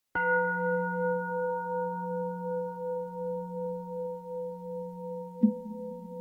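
A singing bowl struck once, ringing with a long, slowly fading tone that wavers in loudness. About five seconds in, a second sharp strike adds a slightly higher tone.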